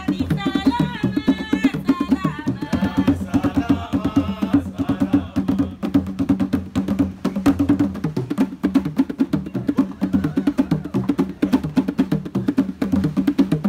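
Fast N'goma drumming: a dense, driving pattern of drum strikes with low drum tones underneath. A high melodic line rides over it for about the first five seconds, then fades back and returns faintly later.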